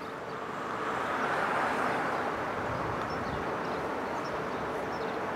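Road traffic going by: a swell of tyre and engine noise that peaks about a second and a half in, then settles into a steady rush.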